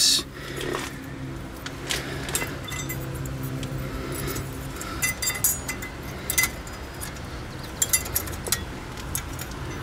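Small metal clicks and clinks as new stamped-steel brake pad clips are handled and pressed into a rear brake caliper bracket. A steady low hum sounds under the first half.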